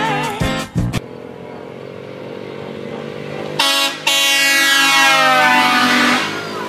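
Motor scooter riding past with a steady engine note, then a loud air horn blasting from it: a short blast, then a long one whose pitch slides steadily down as it passes.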